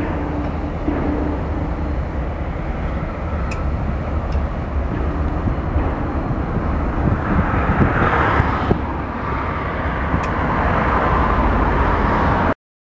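Steady outdoor rumble and hiss over a rail yard, swelling a little about eight seconds in, with a few faint clicks, then cutting off suddenly near the end.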